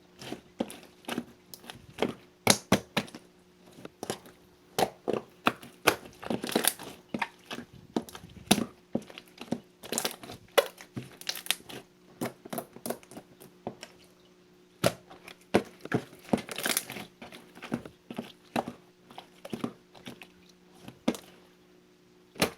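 Hands squishing and kneading marbled slime: a run of irregular sticky clicks, crackles and pops, easing off briefly about halfway through.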